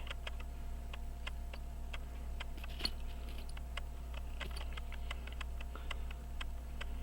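Faint small ticking clicks over a steady low hum.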